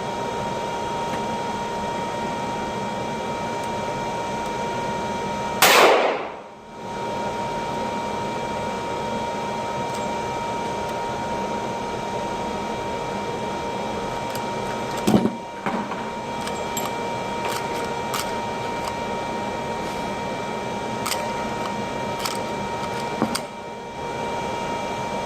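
Two gunshots at an indoor range, one loud shot about six seconds in and a weaker one about fifteen seconds in, with a few faint clicks afterwards, over a steady background hum with a constant tone.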